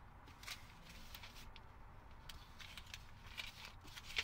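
Paper till receipts rustling as they are leafed through and sorted by hand: a string of faint, crisp, irregular rustles.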